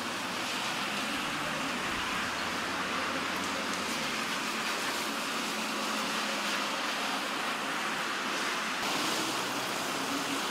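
Heavy rain falling steadily in a thunderstorm downpour: an even hiss, with a faint low hum under it that stops about four seconds in.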